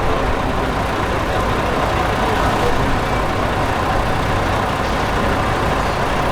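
Steady street noise with vehicle engines running and idling.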